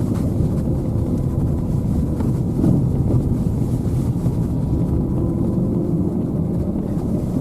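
Steady road and engine rumble inside a car's cabin while driving on a snow-packed road.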